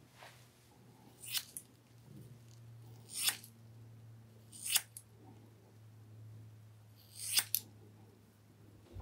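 Hair-cutting shears snipping through thick straight hair: four cuts a second or two apart, the first and last each followed quickly by a second snip.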